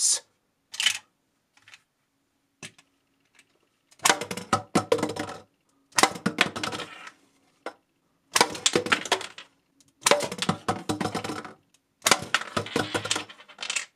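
Bottle-cap blaster toy firing plastic caps at an empty plastic drink bottle, each hit followed by a clatter of the bottle toppling and bouncing on a hard tabletop. There are about five such rattling clusters, each a second or so long and roughly two seconds apart, with a few faint clicks before the first.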